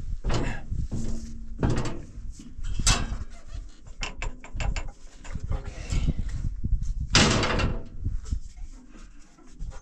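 Hand-tool and metal clanks and knocks while working on a tractor's fan drive, with a quick run of clicks about four seconds in and a loud burst of noise about seven seconds in.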